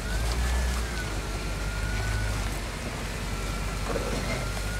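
Hummer H3's engine running at low revs as it crawls over rocks, with a thin steady whine above the low hum.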